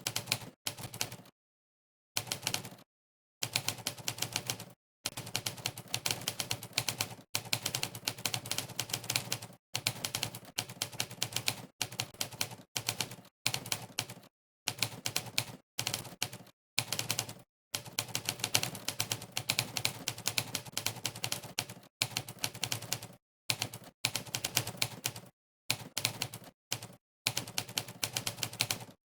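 Typewriter key-strike sound effects played by the Monkeytype typing site, one clack per keystroke, in fast runs broken by short pauses of dead silence.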